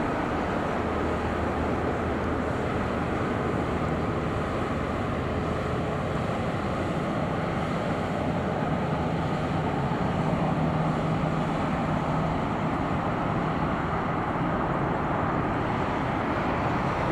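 Airbus A350-900's Rolls-Royce Trent XWB jet engines at taxi idle: a steady rushing hum with a faint whine.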